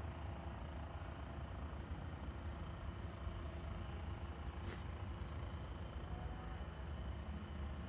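Steady low outdoor rumble of distant traffic or machinery, with one short sharp click a little past the middle.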